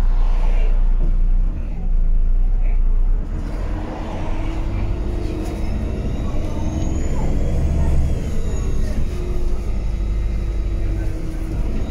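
Irisbus Crossway 12 LE city bus heard from inside its passenger cabin while driving: the diesel engine runs steadily with road and body noise. A faint high whine rises and then falls about halfway through.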